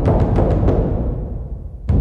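Dramatic music sting led by timpani: a run of rapid drum strokes that fades, then another loud hit near the end.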